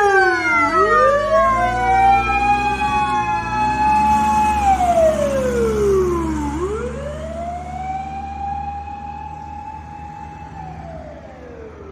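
Japanese fire-vehicle siren on an emergency run, wailing in long cycles about six seconds apart: each one rises, holds a high note, then slides down. It runs over a low engine drone and grows fainter through the second half as the vehicle moves away.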